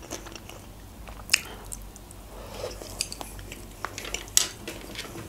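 Close-up mouth sounds of a person biting into and chewing a sushi roll, with scattered sharp wet clicks, the loudest about a second in and again near the end.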